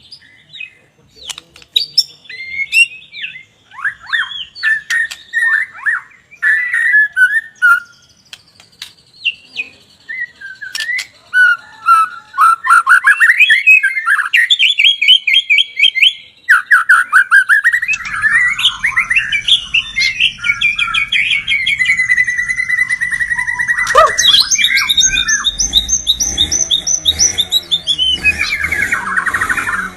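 White-rumped shama (murai batu) singing a varied, loud song of whistles, chatters and rapid trills, sparse phrases at first that build into a dense, nearly unbroken run of trills. A low background rumble joins about two-thirds of the way through.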